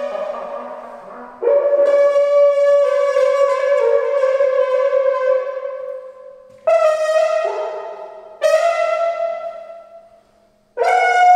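Improvised horn of coiled copper tubing with a brass mouthpiece, blown into a cast aluminum sculpture bell, playing held brass tones. A long note starts about a second and a half in and sags slightly in pitch. Two more notes start about seven and eight and a half seconds in, each ringing away, and after a brief silence another note enters near the end.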